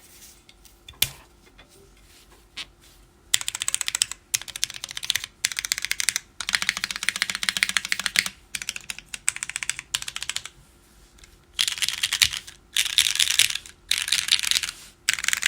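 JJW Derivative custom mechanical keyboard, full aluminium plate in a relief mount, with lubed and filmed Cherry MX Black linear switches (not yet broken in) and KKB WOB keycaps, clacking under typing. A few lone keystrokes at first, then fast bursts of typing a second or two long with short pauses between.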